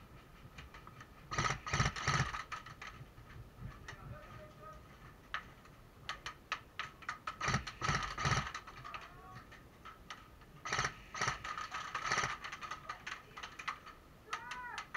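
Airsoft electric guns firing full-auto in three bursts of rapid clicking, each about a second long, with scattered single clicks between them.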